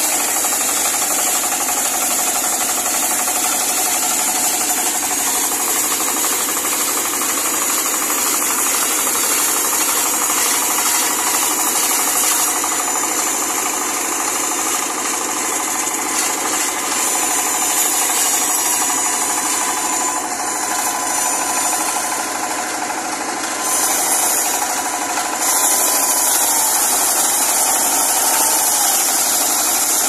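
A small tractor's single-cylinder diesel engine runs steadily, driving a large circular saw blade that rips lengthwise through a log, with a continuous high-pitched cutting hiss over the engine clatter.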